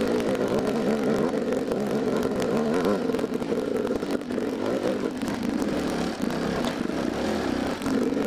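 Dirt bike engine running on a bumpy single-track trail, its pitch rising and falling as the throttle is opened and closed, with frequent knocks and rattles from the bike over the rough ground.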